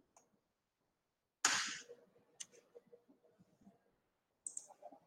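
Pen strokes and taps on a writing tablet: one sharp click about a second and a half in, then a few faint light clicks.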